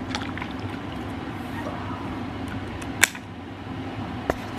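A steady background hum with light rustling and a few short clicks, the sharpest about three seconds in.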